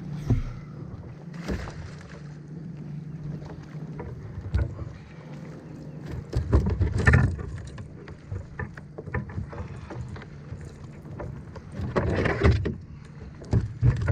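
Knocks, thumps and scraping from a landing net and a bass being handled against a kayak hull. The loudest clusters come around seven seconds in and again near twelve seconds, over a steady low hum.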